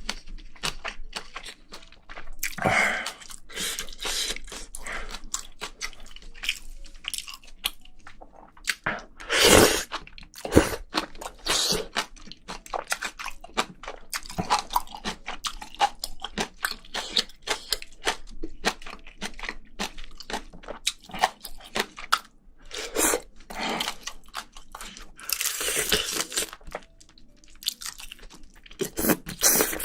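Close-miked eating sounds of a person working through spicy braised seafood: irregular chewing, crunching and wet mouth smacks, with a few louder crunches.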